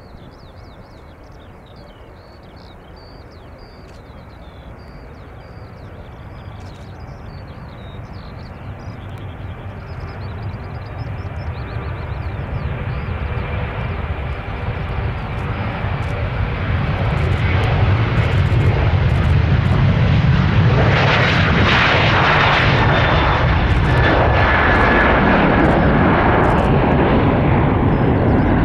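Boeing 737's twin jet engines at takeoff thrust during the takeoff roll and climb-out. The sound grows steadily louder over the first eighteen seconds or so as the jet accelerates toward and past the microphone, then holds loud as it lifts off and climbs. Birds chirp faintly in the first several seconds.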